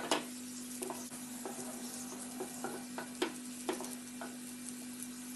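Chopped onions sizzling in hot oil in a frying pan while a wooden spatula stirs them, knocking and scraping against the pan about ten times at irregular intervals. The onions are nearly done frying, turning golden. A steady low hum runs underneath.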